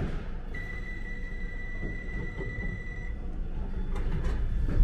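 Bakerloo line train's door warning tone: one steady high electronic beep lasting about two and a half seconds, over the low rumble of the train standing at the platform, with a knock at the very start.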